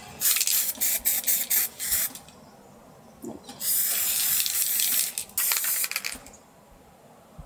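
Aerosol spray-paint can spraying the inside of a flowerpot: a rapid run of short spurts over the first two seconds, then, after a pause, one continuous hiss of about two and a half seconds.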